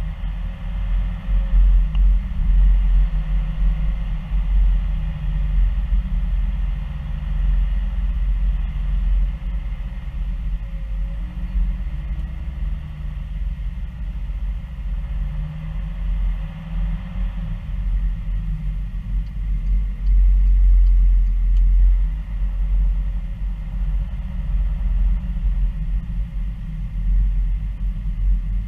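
A car driving slowly, heard from inside the cabin: a steady low rumble of engine and tyres.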